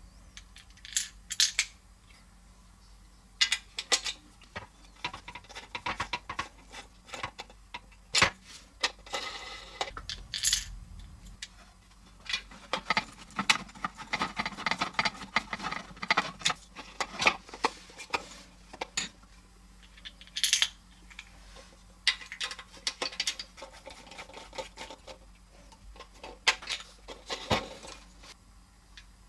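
Hard plastic toy-kit parts clicking and clattering as they are handled and pushed together, with a longer stretch of plastic scraping and rubbing in the middle as a peg and wheel are worked into place.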